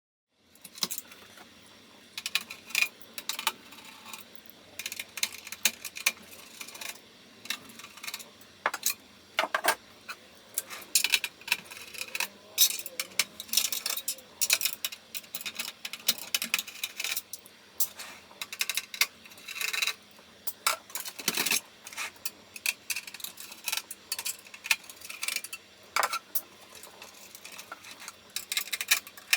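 Irregular sharp metallic clicks and clinks of hands handling the parts and screws of a PC-9821An desktop computer, some knocks louder than others.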